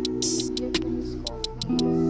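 Background music: sustained chords that change twice, with light ticking percussion.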